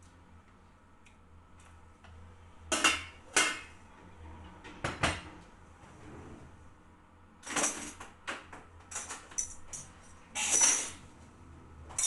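Dishes and cutlery clattering: a string of short clinks and knocks in irregular clusters, the loudest about three seconds in and about two seconds before the end.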